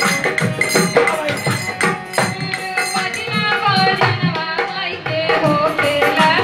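Live Bhojpuri folk song: a woman's voice singing through a microphone over dholak drum beats and electronic keyboard, the wavering sung melody coming in clearly about halfway through.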